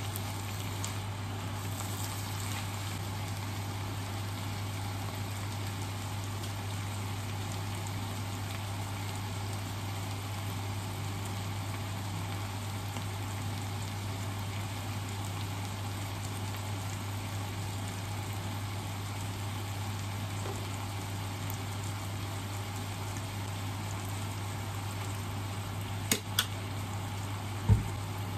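Pork and napa cabbage sizzling steadily in a frying pan over a steady low hum. A few sharp taps sound near the end.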